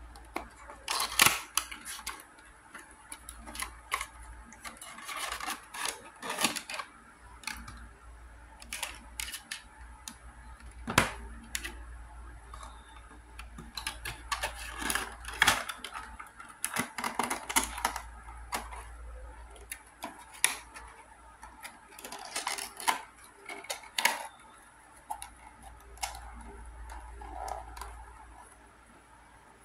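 Cardboard box and clear plastic packaging tray being opened and handled: irregular clicks, taps and crinkles of plastic and card.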